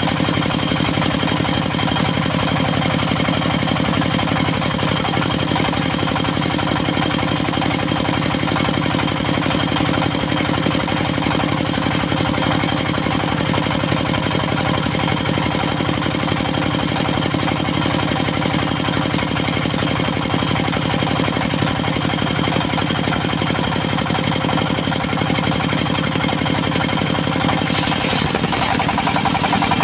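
Engine of a portable circular sawmill running steadily at a constant speed, with steady whine tones above it. About two seconds before the end the sound shifts, and a higher hiss comes in.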